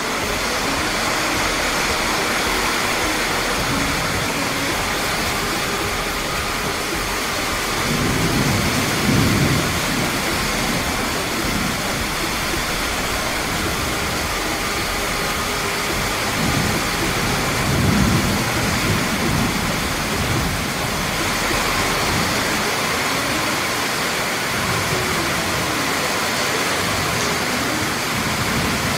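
Torrential rain pouring down steadily in gusty wind, with two low rolls of thunder, the first about eight seconds in and the second a little past the middle.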